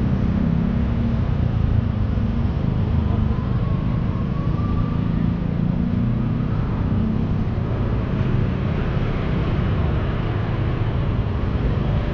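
Street traffic: cars and motor scooters running along the road, a steady low rumble, with a faint rising engine note a few seconds in.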